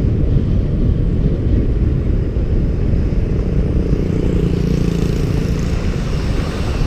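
Wind rumbling and buffeting on the microphone of a handlebar-mounted camera on a moving bicycle. A car passes about four to six seconds in, adding a hum and a rise in tyre hiss.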